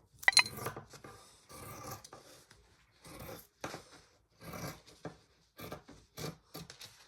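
Fabric and a paper pattern being handled, making short, irregular rubbing and rustling sounds.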